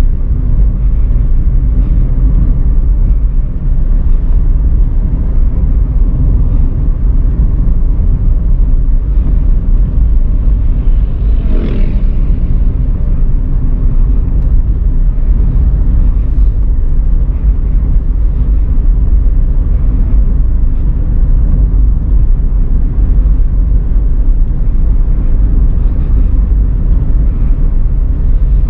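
Daihatsu Xenia driving downhill, a steady low rumble of engine and road noise with a faint engine hum. A brief, higher-pitched sound cuts in about twelve seconds in.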